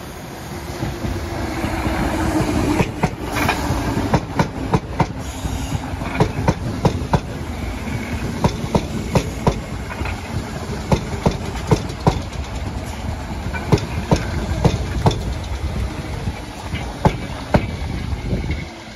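Merseyrail Class 508 electric multiple unit passing close by. The running noise builds as it approaches, then its wheels clack sharply, often in quick pairs, over the rail joints as the carriages go by.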